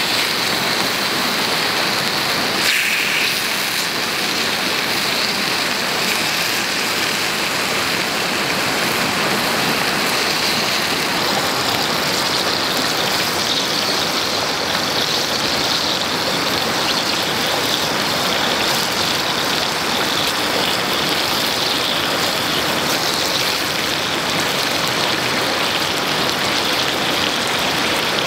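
Squid sizzling and bubbling in a steel frying pan over a campfire, a steady hiss.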